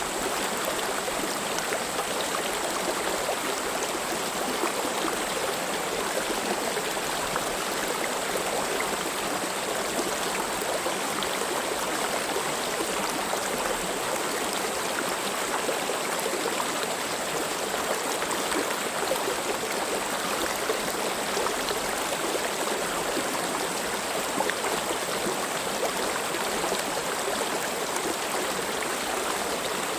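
Valley stream flowing steadily, an even, unbroken rush of running water.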